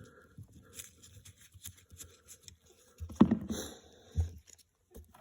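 Light clicks and taps of tools and small parts being handled, then a louder clunk about three seconds in and a single knock about a second later.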